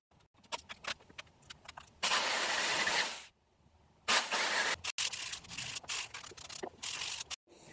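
Corded jigsaw cutting wood: a few handling clicks, then the saw runs for about a second and winds down, then runs again for about three seconds under uneven cutting load, rounding off a corner of the piece, and stops abruptly.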